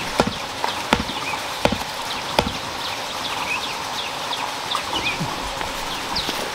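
A hand tool striking in a steady rhythm, four knocks about three quarters of a second apart that stop about two and a half seconds in. Small birds chirp throughout.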